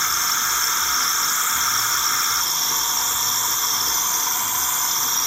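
Saeco Aulika super-automatic coffee machine steaming and frothing milk for a cappuccino: a steady, loud hiss. A lower part of the hiss drops away about two and a half seconds in.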